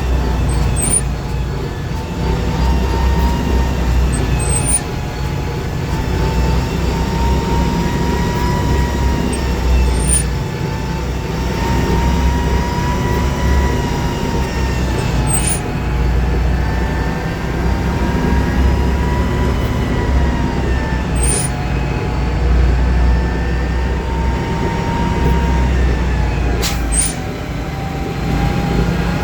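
Mercedes-Benz MB-trac 1300 tractor's six-cylinder turbodiesel running steadily while driving, over a heavy low rumble, its engine speed rising and falling gently. A few brief clicks break in now and then.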